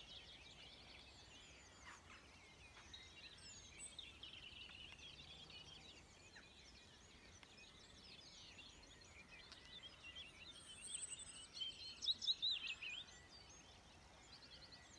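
Dawn chorus: many songbirds singing at once, faint and overlapping, with one nearer bird's song louder about eleven seconds in.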